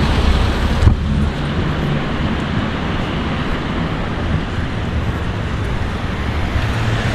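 Street traffic noise: cars running along the road, with a low rumble early on that eases off, and wind rumbling on the microphone. A single sharp knock comes about a second in.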